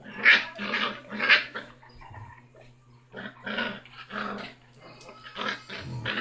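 Six-week-old basset hound puppy growling and yapping in short bursts, the loudest in the first second and a half, then a brief lull and more growls after about three seconds.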